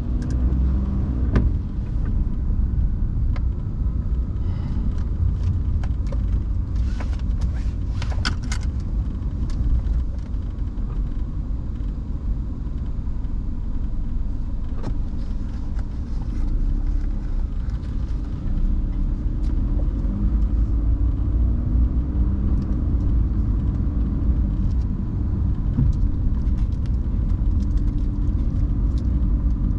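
Car driving in the rain: a steady low rumble of road and engine noise, with scattered sharp clicks and a short cluster of them about eight seconds in.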